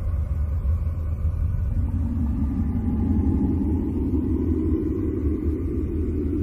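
Deep, rumbling drone presented as the sound of Uranus's moon Miranda, with a mid-low layer swelling in about two seconds in and faint high tones above.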